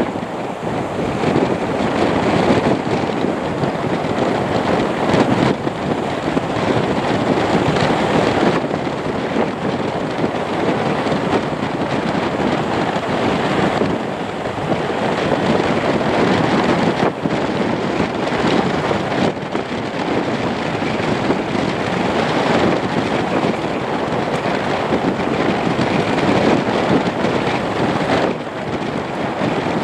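Lockheed Martin C-130J Hercules turboprop engines running steadily as the aircraft taxis, with wind buffeting the microphone.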